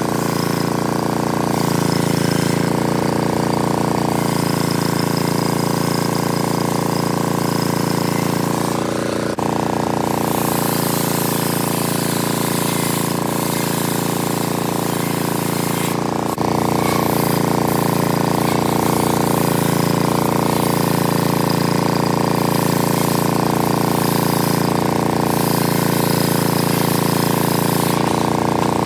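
A homemade engine-driven circular saw bench running steadily under load as its large blade rips lengthwise through a teak beam.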